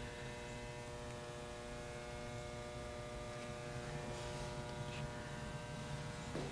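Faint steady electrical hum, a stack of even tones, with a couple of faint ticks; no engine running.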